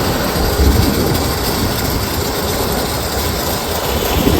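Steady rumble of a fishing boat under way offshore: engine noise mixed with rushing wind and water.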